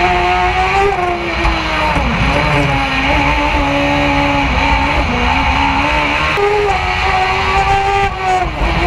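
Open-wheel single-seat race car engine heard from on board at high revs on a hillclimb. Its pitch holds steady, then drops or jumps several times as the driver lifts, brakes and changes gear through the bends, over steady wind and road noise.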